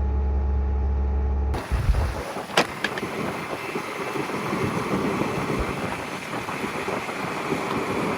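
Bobcat S650 skid steer's diesel engine running steadily with a low hum, then about a second and a half in the sound changes abruptly to wind noise on the microphone, with a couple of thumps and a click just after the change.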